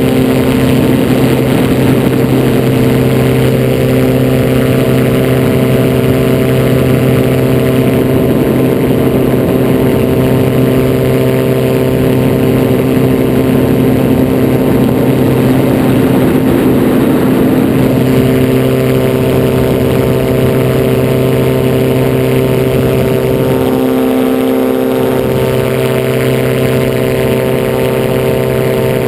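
Butterfly Monarch gyroplane's engine and propeller running steadily at cruise power in flight, heard from a camera on the aircraft. A rougher rushing noise sits over the engine for much of the first half.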